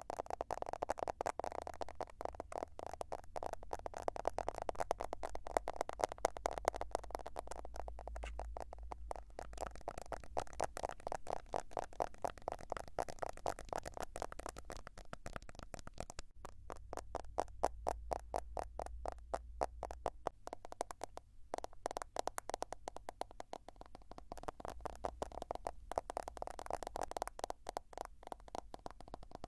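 Fast tapping on a smartphone: a dense, even run of many small hollow clicks a second, thinning out briefly a couple of times partway through.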